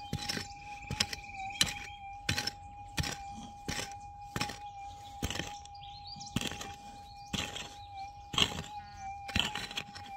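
A prospecting pick chopping into hard, gravelly soil, roughly one sharp blow a second, digging down to a metal detector target. Under the blows runs the detector's steady mid-pitched threshold hum.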